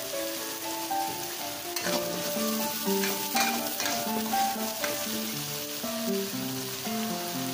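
Ground shallot spice paste sizzling in hot oil in a wok, stirred with a metal spatula that scrapes the pan several times. Soft background music plays along.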